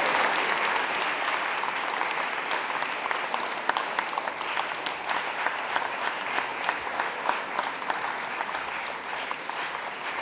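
Audience applauding after a talk. The clapping is loudest at first and dies away steadily, and single claps stand out more and more as it thins.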